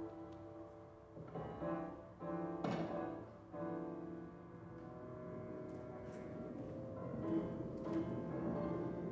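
Classical music with long held notes and a few louder swells.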